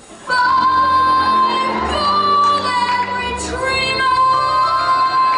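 A child singing a long held high note over a live orchestra, which comes in suddenly just after the start.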